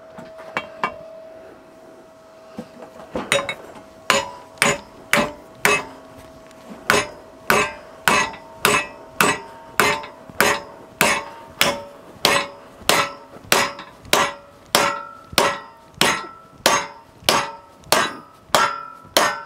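Hammer blows on a MIG-welded aluminium fillet-weld test piece held in a vice, a destructive test of the weld: a few light taps, then steady strikes about two a second from about three seconds in, each with a short metallic ring.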